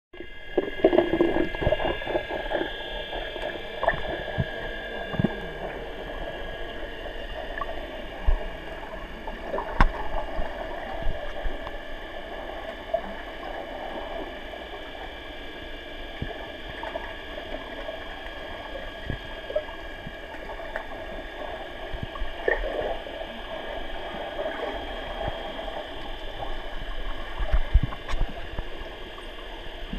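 Underwater sound in a swimming pool: a steady hum of several high tones under a wash of water noise, with scattered knocks and splashing as swimmers move and dive to the bottom.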